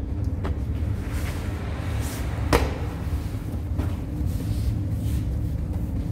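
Lavash dough being slapped onto the inner wall of a hot tandoor with a padded baker's cushion: a sharp thump about two and a half seconds in and a few lighter knocks, over a steady low rumble.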